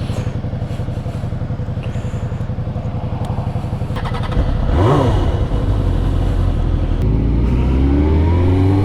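Motorcycle engine idling with an even pulse, blipped once about four and a half seconds in. It then runs louder from about seven seconds, its pitch rising slowly near the end.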